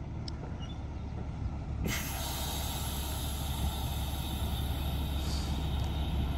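Loaded dump truck's diesel engine running with a steady low rumble; about two seconds in, a steady hiss comes in over it.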